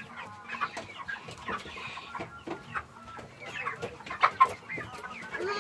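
Chickens clucking: a run of short, scattered calls from several birds, loudest about four seconds in.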